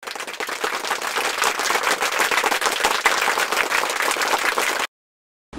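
Applause: a crowd of hands clapping for about five seconds, starting and stopping abruptly.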